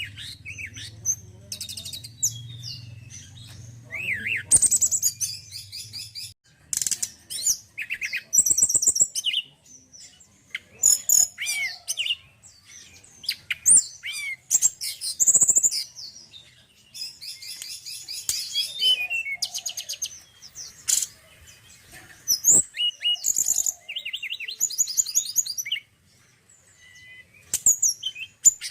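Male tledekan gunung songbird singing: a long run of varied high chirps, fast buzzy trills and short whistles, phrase after phrase with brief pauses between. A low steady hum sits under the song for the first several seconds.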